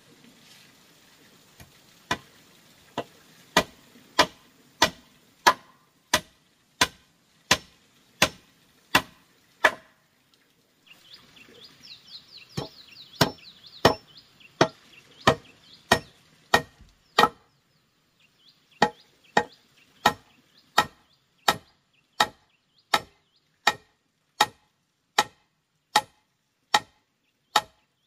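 Steady chopping: a tool striking wood about one and a half times a second, with two short pauses. High chirping sounds faintly behind it partway through.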